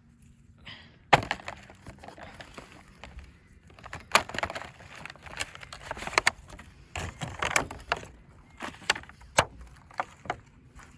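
Irregular crunching and sharp cracking as fallen lemons and limes are gathered from ground littered with hail ice and storm debris.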